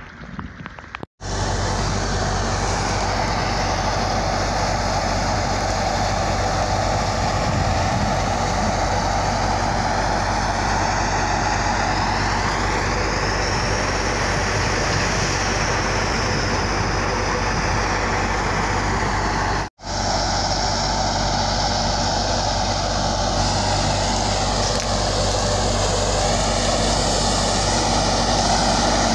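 Tractor-powered wheat thresher running steadily, a dense continuous machine noise over a constant low engine hum. It cuts out for a moment twice.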